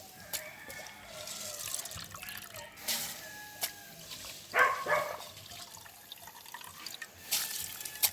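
Liquid in a cooking pot over a wood fire: water and coconut milk for rice and peas, trickling and bubbling as it comes to the boil.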